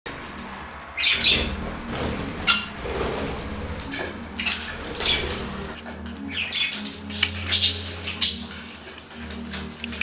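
Budgerigars chirping: short high calls repeated irregularly throughout, several birds at once.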